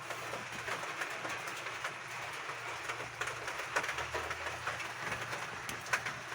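Steady rain on roof tiles: an even hiss with scattered sharper drops and taps.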